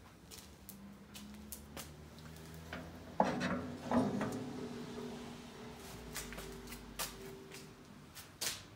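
Steel parts of an offset smoker being handled: a sharp metal clank about three seconds in that rings on for a moment, a second clank about a second later, then lighter knocks and clicks.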